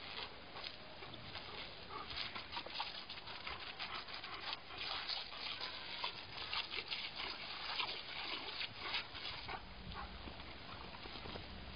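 German Shepherd snapping and gulping at a jet of water from a garden hose: quick wet snaps and splashes over the steady hiss of the spray. The snapping thins out near the end.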